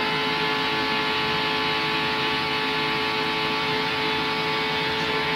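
A field of NASCAR Winston Cup stock cars running at full speed, their restrictor-plate V8 engines making a steady drone of many engines at once.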